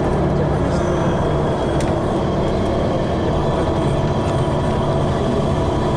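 Steady running noise of a tour coach heard from inside the cabin: engine and tyre noise while the bus drives along.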